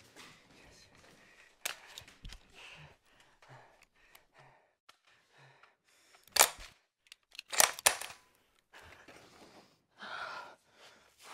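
Sharp metallic clicks and clacks of a compact submachine gun being worked by hand: one click about a second and a half in, the loudest clack about six seconds in, then two more in quick succession just before eight seconds. A short rustle follows near the end.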